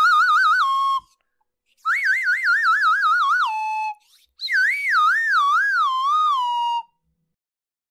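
Cartoon slide-whistle sound effect: a wobbling whistle tone that wavers up and down as it slides down in pitch, then settles on a held lower note. It plays three times: the first is already under way and ends about a second in, and the last has a slower wobble and ends near seven seconds.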